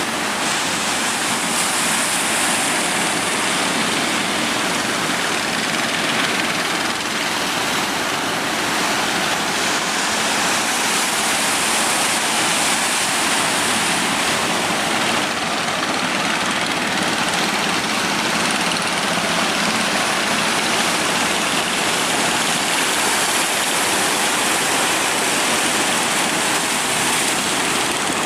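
Steady rushing roar of heavy surf and breaking waves, an even wash of noise with no distinct crashes standing out.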